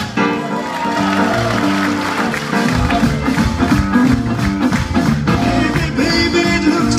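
Band music with a steady beat, playing on without vocals.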